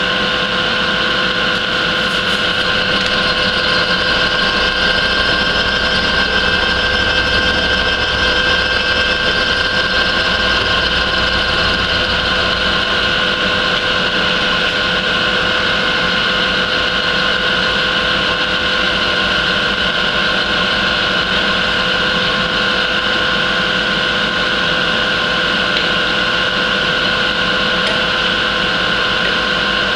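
A milling machine's end mill cuts steadily through a workpiece clamped in the vise as the table feeds. The cutting sound is continuous and even, with several held tones over the machine's motor hum.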